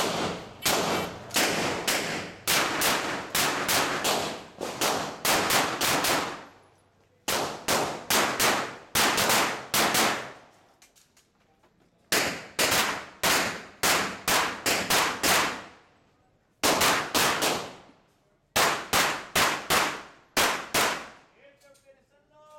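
Rapid strings of pistol shots from a 9mm Glock 17 Open-division race gun, several shots a second. Four or five strings are broken by short pauses of one to two seconds as the shooter moves between positions. The shooting ends about a second before the close.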